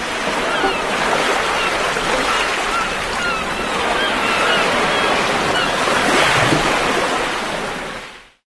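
Surf washing onto a shore in a steady rush, with faint high chirps over it. It fades and cuts off shortly before the end.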